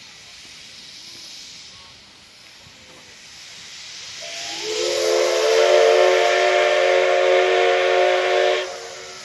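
Steam locomotive's whistle sounding one loud, long blast of several tones together, starting about four seconds in, holding steady for about four seconds and cutting off sharply. A steam hiss is heard faintly before the whistle and runs under it.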